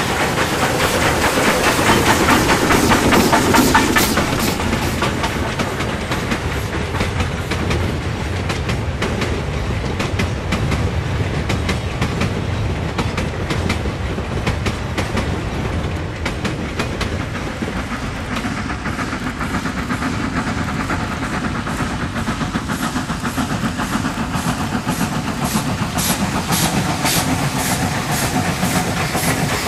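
A freight train's wagons and coaches rumble and clatter over the rail joints as they roll past. Then an NRZ 14A class Beyer Garratt steam locomotive approaches under load, its exhaust beats coming evenly and growing louder near the end.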